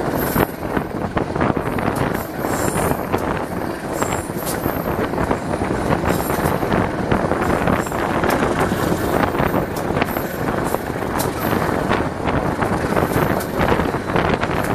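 A train rolling past: a loud, steady rumble and rattle of steel wheels on the rails, with many sharp clicks and a few brief high squeaks.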